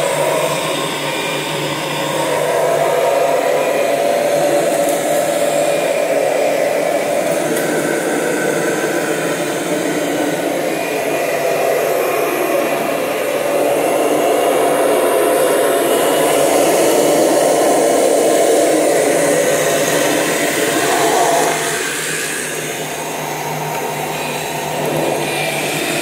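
Kirby Generation 6 upright vacuum (2000 Limited Edition) running steadily as it is pushed over hard floor and then carpet, its sound rising and dipping a little as the nozzle moves.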